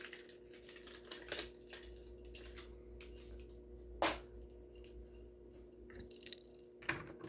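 A diecast toy car's small cardboard box and plastic packaging being handled and opened: scattered light clicks, taps and rustles, with a sharper click about four seconds in and another near the end, over a faint steady hum.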